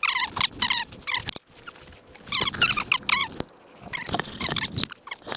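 A parrot chirping in quick runs of short repeated calls, with pauses of about a second between the runs.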